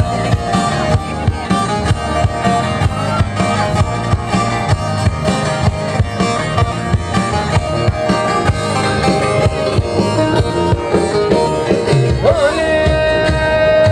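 Live Turkish folk dance music played loud without singing: an even drum beat under a string and keyboard melody. Near the end a note wavers and is then held.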